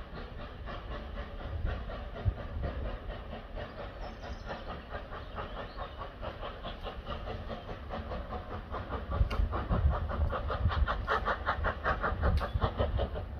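Steam locomotive 2890 Douglas working towards the listener, its exhaust beating in a fast, even rhythm of about five beats a second over a low rumble, growing louder over the last few seconds as it nears.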